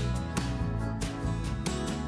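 Background music: a steady instrumental track with plucked notes and a regular beat.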